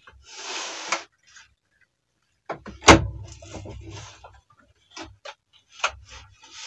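Handling noise from a wet, grain-filled brew bag being worked over the rim of a bucket: a rustle, then a sharp knock just under three seconds in, followed by scattered light clicks and rustles.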